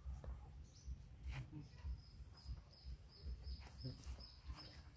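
A bird chirping: short, high, thin notes repeated about two or three times a second, starting about a second in, over a faint low outdoor rumble.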